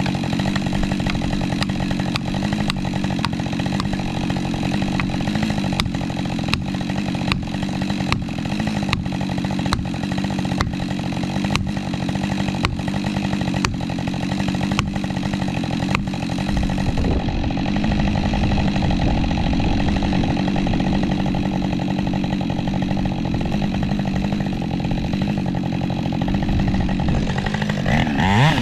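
Husqvarna 550 XP Mark II two-stroke chainsaw running at a steady engine speed, with sharp ticks about twice a second through the first half. Near the end it revs up quickly.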